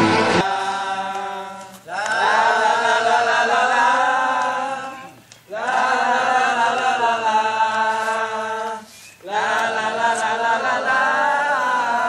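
A group of people singing a chant together, in three long drawn-out phrases with short breaks between them.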